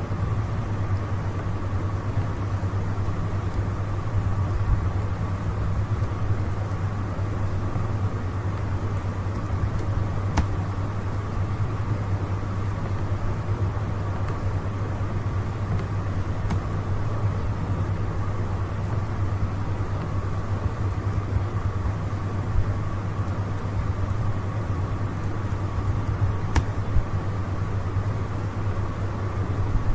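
Steady low hum of background noise, with a few faint clicks.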